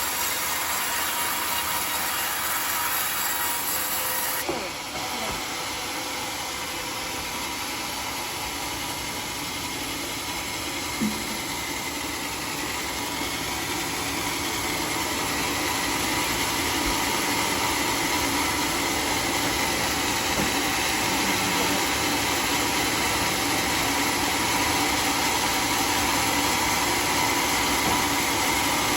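Homemade sawmill machinery running steadily, with a constant mechanical hum. A single sharp knock comes about eleven seconds in, and the running grows gradually louder over the second half.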